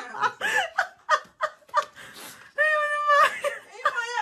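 A person laughing in quick, breathy bursts, then a long high-pitched held note about two and a half seconds in.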